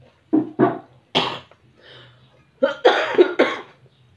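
A woman coughing hard in two bouts: a few sharp coughs in the first second and a quicker run of three around three seconds in.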